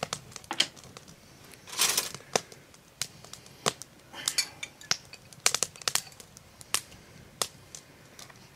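Glass jar of hot pepper rings handled over a stainless-steel mixing bowl as the peppers are shaken in: scattered small clicks and clinks of glass and metal, with a short scraping rustle about two seconds in.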